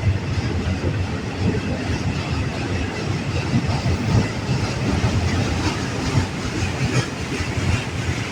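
Freight train cars rolling past, a steady heavy rumble with the wheels clicking now and then over the rail joints.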